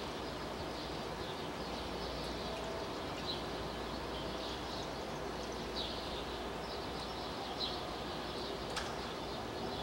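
A few short, high bird chirps spaced seconds apart over a steady background of outdoor ambient noise.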